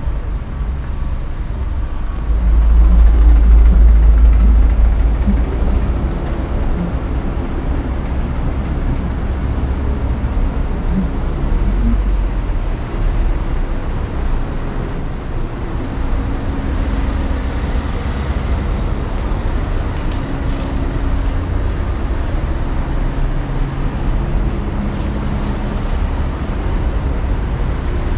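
Street traffic: a steady low rumble of passing road vehicles, much louder from about two and a half to five seconds in.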